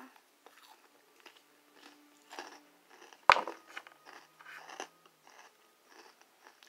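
A run of small, close-up clicks and crunching taps, with one sharp knock about three seconds in that is much louder than the rest.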